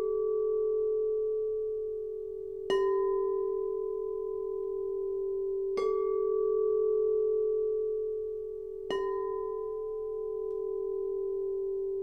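Pressed quartz crystal singing bowls tuned to 432 Hz, struck three times about three seconds apart. Each strike is a sharp tap that blooms into a long, steady ringing tone, which carries over into the next strike. The ringing alternates between two slightly different pitches, one bowl and then another.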